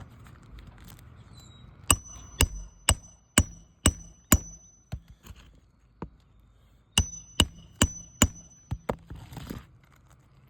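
Hammer blows on metal during asphalt shingle repair: a run of six sharp, ringing strikes about half a second apart, a pause, then four more, followed by a few lighter taps.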